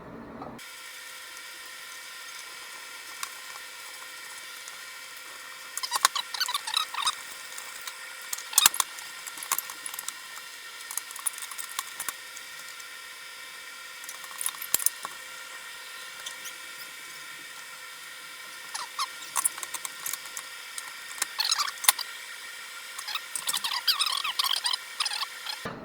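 Scratching, clicking and prying of hands and a tool on the Xbox One S's plastic case and clips, in scattered clusters, with sharp clicks now and then. A steady high-pitched whine runs underneath.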